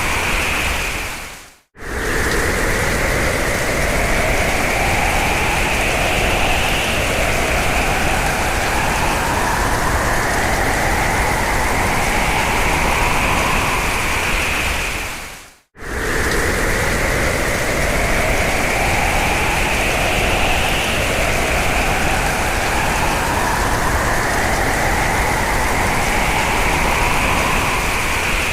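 Hurricane wind sound effect: a dense, steady rush of noise with howling tones that rise slowly in pitch. It fades out and cuts off briefly twice, about 14 seconds apart, then starts again.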